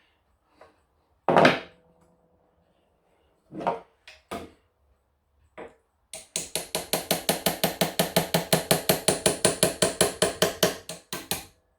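Small hammer tapping a blade driven into the plaster joint of a slate clock case to separate it: a loud single strike with a brief ring, a few separate taps, then a quick, even run of about six taps a second lasting about five seconds.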